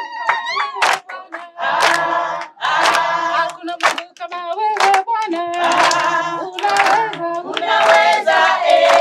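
A choir singing a worship song together, with hand claps roughly every half second to a second over the singing.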